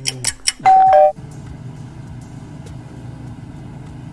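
A clock ticking about four times a second, cut short by a loud two-note chime, high then lower, like a doorbell ding-dong. Then a combine harvester's engine runs with a steady low drone.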